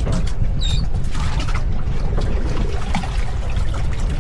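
Water lapping and sloshing against a fishing boat's hull over a steady low rumble, with scattered light clicks and a brief high chirp about half a second in.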